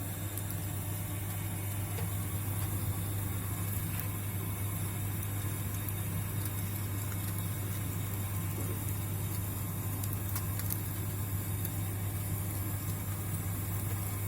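A steady low hum with faint scattered crackles from a wood fire burning in a fireplace grill.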